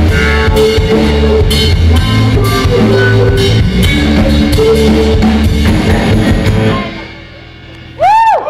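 Live rock band, drum kit and electric guitar, playing loudly and stopping short about seven seconds in. Just before the end a loud tone swoops up and back down.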